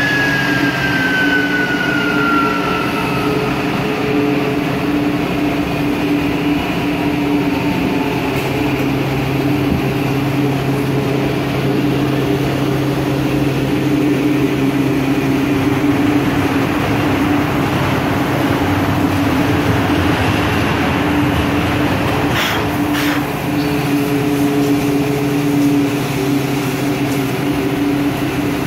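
Three-spindle woodworking CNC router running, with a steady machine hum and the noise of its spindle cutting a wood panel. A high spindle whine slides down in pitch over the first few seconds, and two short sharp sounds come about two-thirds of the way through.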